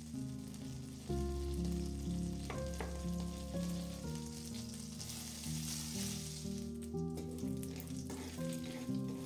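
Food sizzling in a hot pan, with a few stirring clicks; the sizzle swells about halfway through. Instrumental background music plays under it.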